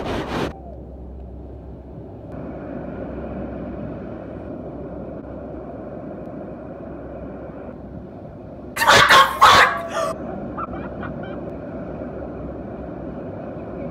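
Surf breaking on a beach, a steady rushing noise. About nine seconds in, a loud burst of noise lasts just over a second.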